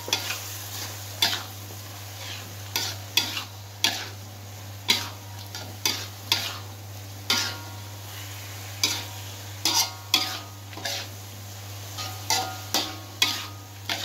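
Metal spatula scraping and knocking against a metal wok as fried tofu and tempeh are stirred into sizzling chili paste. The strokes come irregularly, about one a second, some with a short metallic ring, over a steady frying sizzle.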